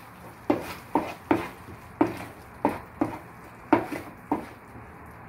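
Wooden spatula knocking and scraping against a pan while stirring a thick masala gravy, about eight knocks at an uneven pace of roughly two a second.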